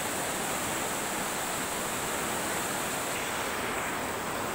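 Swollen river in flood rushing past: a steady wash of fast, muddy floodwater.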